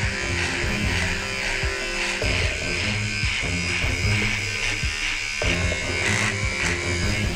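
Cordless electric hair clipper buzzing steadily as it cuts through hair on the side of the head and then through a full beard, with background music underneath.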